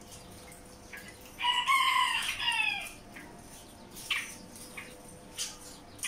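A rooster crows once, about a second and a half in, the call lasting about a second and a half and dropping in pitch at the end. Short high chirps from small birds come before and after it.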